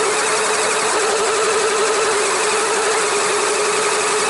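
LEGO Technic electric motors and their gearing running continuously, a steady whine with a slight warble over a dense mechanical hiss, picked up by an action camera mounted on the model.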